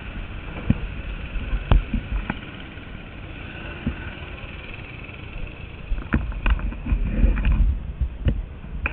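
Action camera being carried and handled: rubbing rumble on the microphone and a series of sharp knocks, busier from about six seconds in, over a faint steady engine drone from karts at the track.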